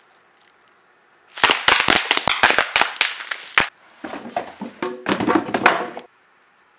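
Edited-in crackling sound effect: a dense run of sharp firecracker-like pops for about two seconds, then after a brief dip a second crackling, rushing burst with a low tone beneath it that cuts off suddenly. It plays as the cardboard time machine starts working.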